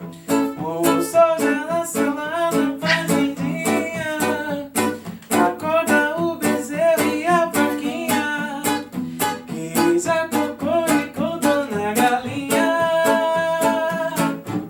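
A song: a voice singing over a strummed plucked-string accompaniment, ukulele-like, at a steady beat.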